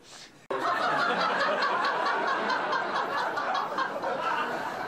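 Laughter that breaks in suddenly about half a second in and carries on steadily.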